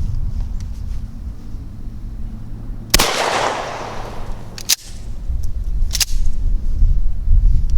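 A single 12-gauge shot from a Mossberg 590A1 pump shotgun firing a mini shell of number 4 buckshot, about three seconds in, with a ringing echo that dies away over a second or so. Two sharp clacks follow, a little over a second apart.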